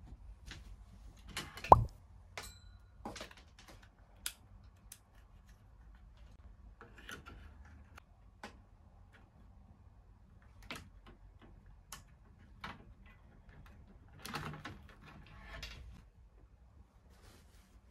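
Scattered light clicks, taps and small clatters of items being set down and adjusted on a metal wire wall rack, with one sharp knock about two seconds in as the loudest, and brief rustling near the end. A faint low hum sits underneath.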